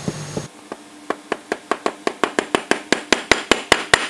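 Rapid hammer taps driving a sleeve bearing into its hole in a mold plate. The taps quicken to about five a second and grow louder toward the end.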